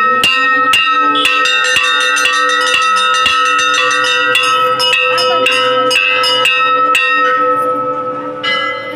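Temple bells rung rapidly during a Hindu puja, with metallic clangs several times a second and ringing tones that linger between them. The strikes stop about seven seconds in and the ringing fades, then a few more strikes come near the end.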